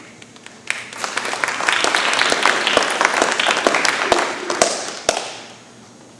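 Small audience applauding, building up quickly about a second in and dying away near the end.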